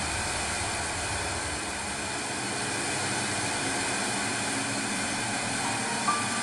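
Steady dark drone of a horror film score: an even hissy wash with a low rumble underneath, with a few short high notes coming in near the end.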